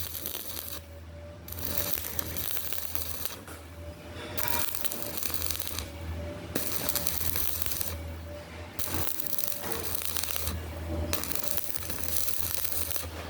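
Electric arc welding: the arc crackles and sizzles in runs of a couple of seconds, with short breaks between runs, over a steady low hum from the welding machine.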